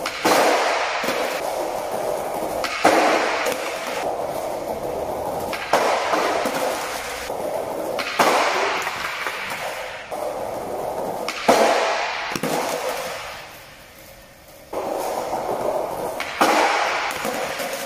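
Skateboard wheels rolling on paving tiles, broken by about six sharp cracks a few seconds apart as the board is popped, hits the low wooden plank box and lands back on the tiles.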